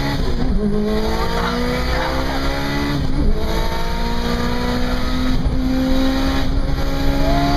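Mitsubishi Lancer Evolution's turbocharged four-cylinder engine at full throttle on a race launch, heard from inside the cabin. Its pitch climbs steadily through the gears, dropping at an upshift just after the start and again about three seconds in.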